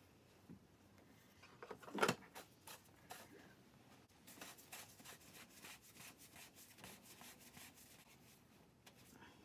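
Plastic oil filter housing cap being fitted and screwed on by hand: one sharp knock about two seconds in as it goes on, then a run of quick light clicks and rubbing as its threads are turned.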